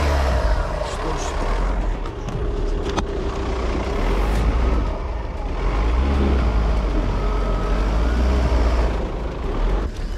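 Car engine revving hard while the wheels spin in deep mud: the car is stuck and the tyres cannot get any grip.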